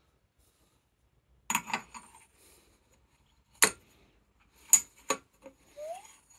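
A few sharp metallic clinks and knocks, about four of them spread over several seconds, as parts go into a motorcycle fork lower leg and a metal rod is worked down inside it. A short rising scrape comes near the end.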